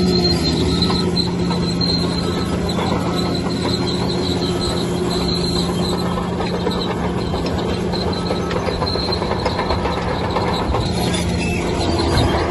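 Bulldozer at work: its diesel engine revs up at the start and then runs steadily under load, with a high squeal and rattling clank from its steel tracks.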